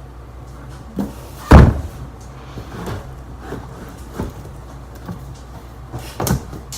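A loud thump about a second and a half in, amid lighter knocks and clunks of things being handled.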